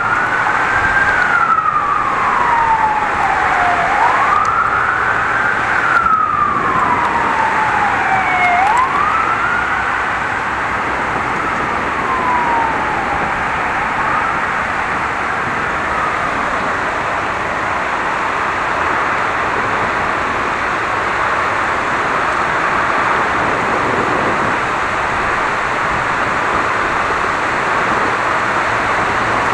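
Emergency-vehicle siren wailing: a quick rise and a slower fall about every four and a half seconds, fading out a third of the way in. Underneath, a steady hiss of heavy rain runs throughout.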